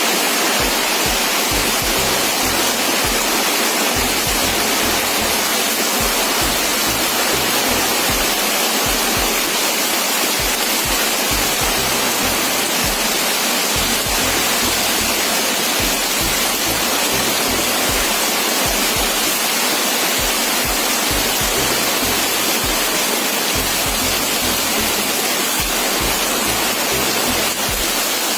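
Heavy monsoon rain pouring down, a loud, steady, even hiss with a low rumble underneath.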